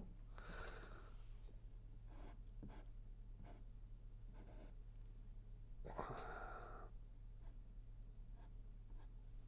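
Faint, scratchy strokes of a paintbrush working paint on canvas, over a steady low electrical hum. A louder rush of noise comes about six seconds in.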